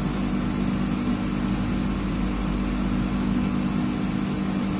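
Steady hum of running machinery: a few constant low tones over an even background noise, unchanging throughout.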